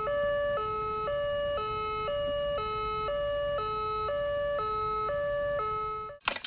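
Ambulance's two-tone siren alternating evenly between a high and a low note, about half a second each, then cutting off near the end.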